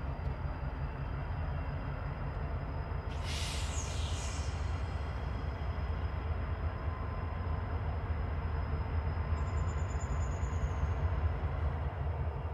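Norfolk Southern freight train's diesel locomotives approaching slowly, a steady low rumble. A brief high hiss comes about three seconds in, and a thin high tone near ten seconds in.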